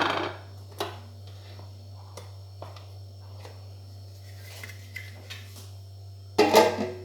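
Kitchen utensils and dishware being handled: a few light knocks and clinks, then a louder clatter near the end, over a steady low hum.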